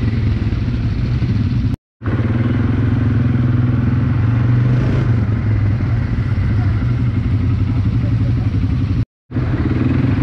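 ATV (quad bike) engine running steadily while riding. The sound cuts out briefly twice, about 2 seconds in and again near the end.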